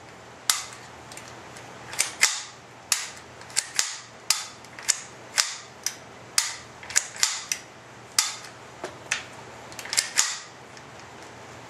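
Marlin Model 795 .22 semi-automatic rifle's action being worked by hand: an irregular run of sharp metallic clacks and clicks, often in quick pairs, as the bolt is racked back and snaps shut and the trigger is pulled. This is the function check of the freshly reassembled rifle.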